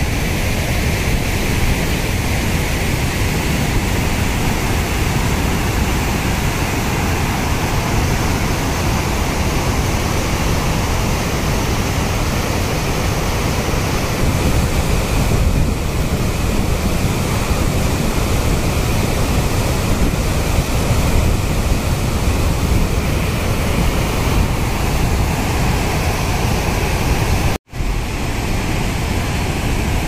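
Dam overflow spilling as a small waterfall in the monsoon: a loud, steady rush of falling water, broken by a split-second dropout near the end.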